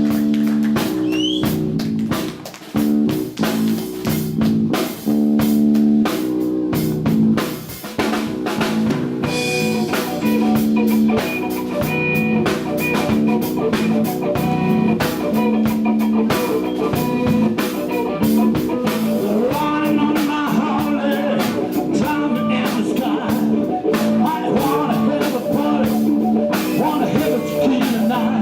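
Live blues-rock band playing: electric guitar, bass and drum kit, with stop-start hits in the first few seconds before settling into a steady groove.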